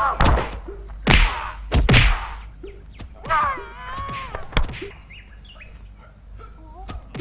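Kung fu film fight sounds: several sharp punch and kick hits, with a long, high, wavering fighting yell a few seconds in.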